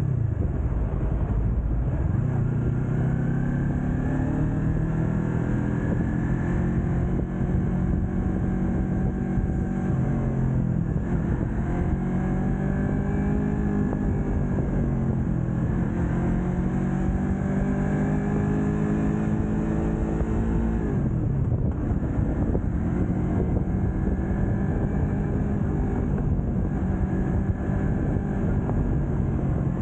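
Yamaha YZF-R3's 321 cc parallel-twin engine under way, its pitch climbing for several seconds as it pulls and dropping back sharply, about three times, then running steadier near the end.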